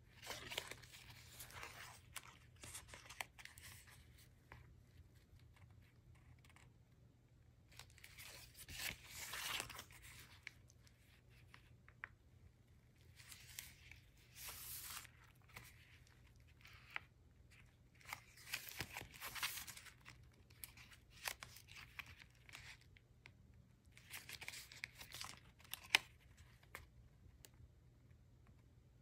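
Thick paper pages and card tags of a handmade junk journal being turned and handled, faint rustling and crinkling in short bursts every four to five seconds.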